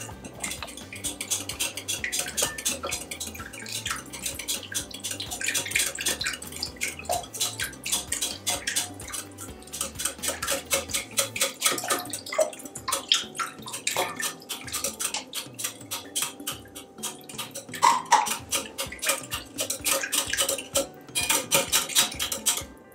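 Wire whisk beating a liquid mix of eggs, melted butter and milk in a glass bowl: fast, steady clicking of the wires against the glass.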